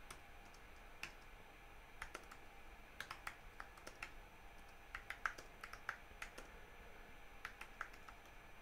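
Faint typing on a computer keyboard: irregular keystrokes in short runs with small pauses between them.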